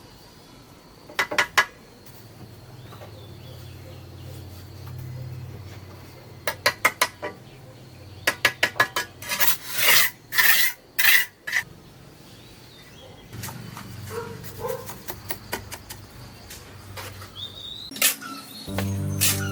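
Kitchen utensils and dishes clinking and knocking in short runs of quick sharp strikes, loudest around ten seconds in, followed by softer scattered taps.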